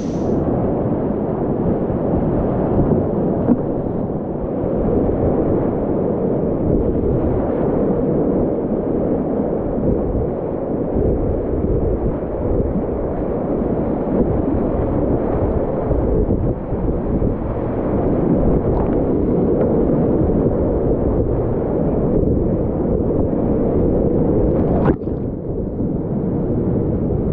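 Whitewater rapids rushing and churning around a kayak in a loud, steady, muffled wash of noise. A single sharp click comes near the end.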